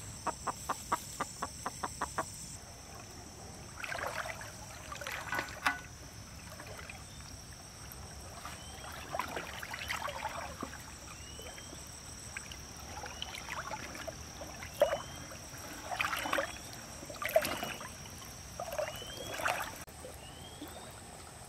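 A hen clucking in a quick run of about five clucks a second at the start, then water sloshing and splashing in bursts as a person wades through shallow pond water. Short rising bird chirps and a steady high-pitched whine run behind.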